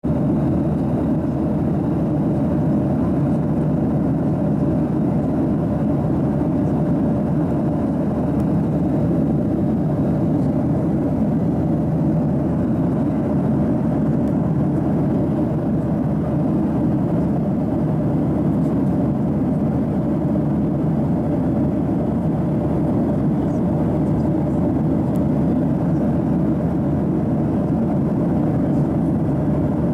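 Steady cabin noise of a Boeing 737-800 in flight, heard from a window seat over the wing: an unchanging engine and airflow drone with a faint steady hum in it.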